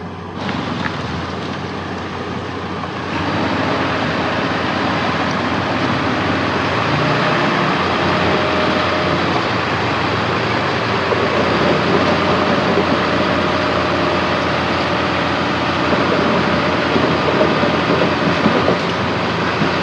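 Crawler bulldozer's diesel engine running hard with its steel tracks clanking, getting louder about three seconds in.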